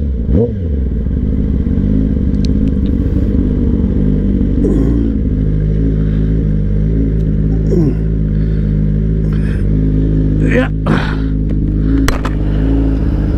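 Suzuki GSX-R600 sport bike's engine idling steadily, with a few short clicks and knocks near the end.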